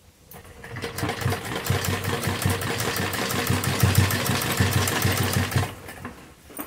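Domestic straight-stitch sewing machine running and stitching lace onto a cotton kurti's neckline: it picks up speed in the first second, runs with a rapid, even rhythm of needle strokes, and stops about a second before the end.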